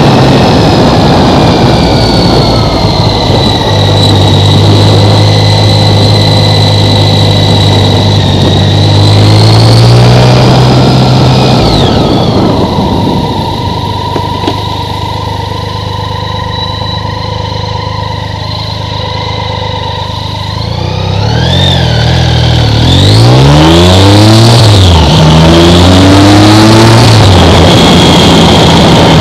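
1987 BMW K75's three-cylinder engine under way, heard from the rider's helmet. It pulls up steadily in pitch, then drops away suddenly about twelve seconds in and runs quieter for several seconds. After that it rises and falls in pitch several times before settling to a steady note.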